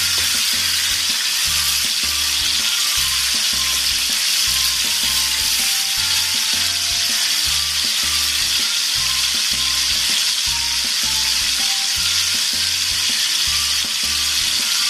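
Marinated boneless chicken pieces deep-frying in hot oil in a karahi, with a steady, even sizzle, and background music with a regular beat underneath.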